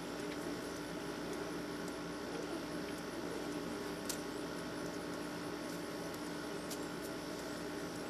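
Steady electrical hum with a low hiss, and one faint click about four seconds in.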